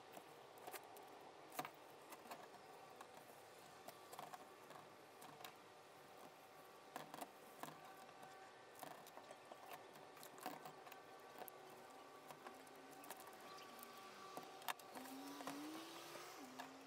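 Faint, scattered clicks and taps as a 3D-printed part is pried loose and lifted out of a cured fiberglass-and-epoxy mold with a small hand tool, over a faint steady hum.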